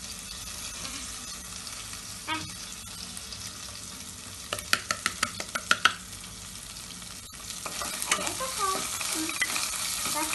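Onions and tomatoes sizzling steadily in oil and ghee in an aluminium pressure cooker. About halfway through there is a quick run of about eight sharp taps. Near the end the pan is stirred with a spatula, making scraping and clatter over the sizzle.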